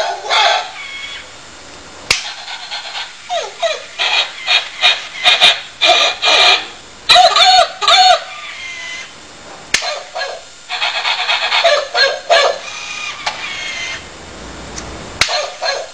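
Sound-controlled electronic plush toy dog giving runs of short, high, synthetic barks and yips from its small speaker, in several bursts. A single sharp snap comes a second or so before three of the bursts.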